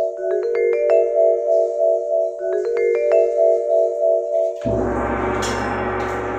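Intro music: a short phrase of bright, bell-like struck notes rising in pitch, played three times over. About four and a half seconds in it gives way to a fuller sustained chord with deep bass.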